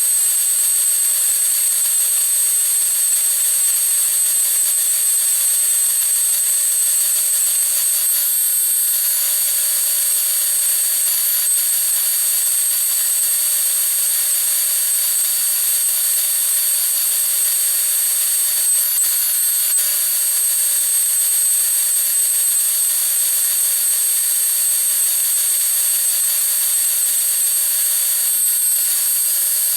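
A John Deere 9500 combine running steadily while harvesting soybeans, giving a constant high whine over an even hiss.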